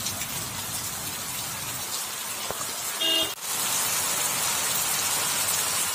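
Heavy rain falling steadily, a continuous hiss. About three seconds in, a vehicle horn gives a short toot; right after, the rain grows a little louder and brighter as it falls into a plastic bucket full of water and onto wet ground.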